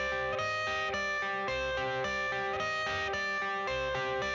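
Background music: an electric guitar riff with a steady beat.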